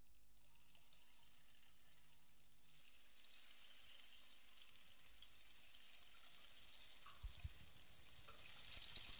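Soft, high crackling hiss like trickling water, slowly growing louder: the opening of the soundtrack music.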